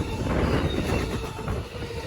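Rail equipment rolling along the track: a continuous low rumble with dense, irregular rattling.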